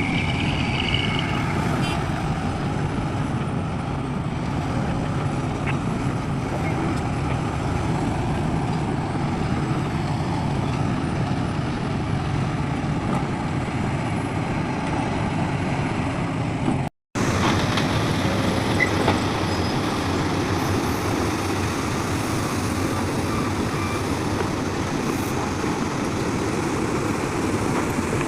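Heavy diesel construction machinery, an excavator and dump trucks, running steadily; the sound cuts out for a moment about two-thirds of the way through and resumes.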